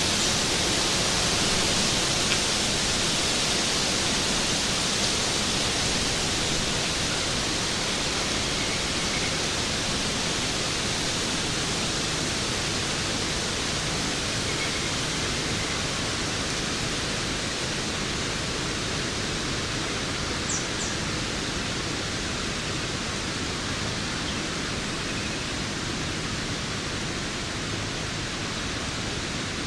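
Waterfall rushing in a steady, even hiss, with a few faint short chirps over it.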